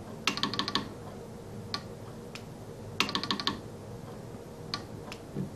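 Telegraph key being tapped to key a QRP CW transmitter: two quick runs of about half a dozen sharp clicks and a few single clicks, made by the key and the transmit/receive switch's relay switching over.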